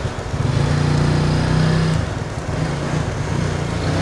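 A vehicle engine running steadily with a low hum, which eases off briefly about two seconds in.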